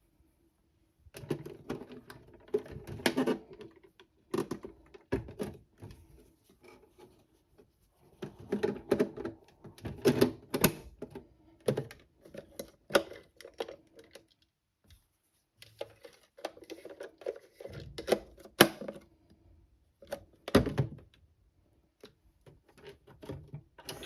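Toy washing machine's plastic parts clicking and clattering in irregular bursts of sharp clicks and knocks, with short pauses between them.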